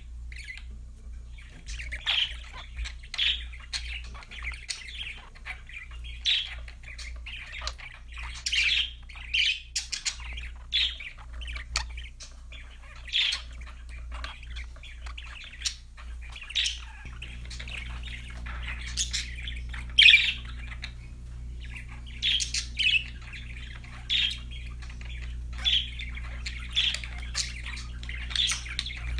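Budgerigars chattering: a steady stream of short, irregular chirps and squawks, with one louder squawk about twenty seconds in.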